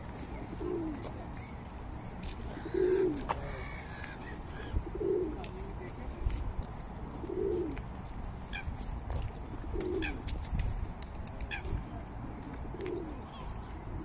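Pigeons cooing: a short low call repeated about every two to three seconds, with faint higher bird chirps in the background.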